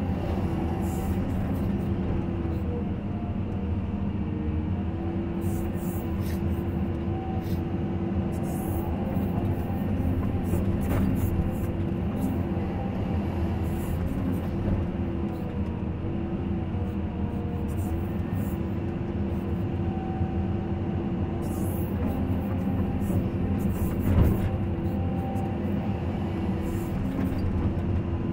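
Caterpillar 320 hydraulic excavator running steadily as heard from inside its cab, engine and hydraulics droning while the arm and bucket dig. There is a single sharp knock near the end.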